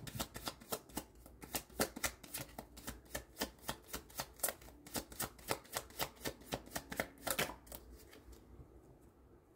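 A deck of tarot cards being shuffled by hand: a quick run of light card slaps and flicks, about four a second, that dies away about eight seconds in.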